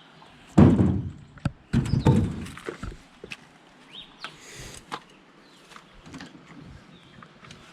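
Two heavy thuds about a second apart, then scattered lighter knocks and clicks.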